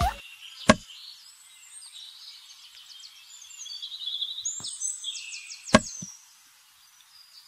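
Small birds chirping and twittering in quick runs of high notes. Two sharp knocks cut in, one about a second in and one near six seconds, with a fainter knock shortly before the second.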